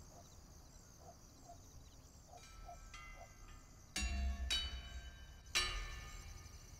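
Quiet soundtrack music: a few faint, high, chime-like tones, then a bell-like strike with a deep low note about four seconds in and another about a second and a half later, each ringing out and fading.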